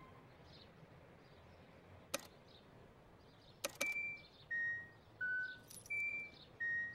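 Pedestrian crossing signal sounding: short electronic beeps stepping down through three pitches and repeating, starting about four seconds in after two sharp clicks. It is the audible signal that it is safe to cross the street.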